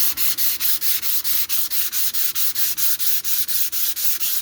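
220-grit sandpaper worked back and forth by hand over cured body filler, a rhythmic scratchy hiss of about five or six strokes a second: the final hand-refining pass that smooths the filler ready for primer.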